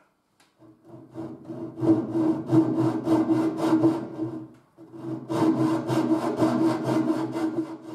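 Small thin-bladed hand saw cutting into the edge of an old wooden chest board with quick short strokes, about four a second, in two runs with a brief pause about halfway.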